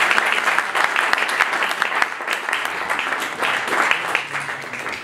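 Audience applauding, many hands clapping, slowly dying down toward the end.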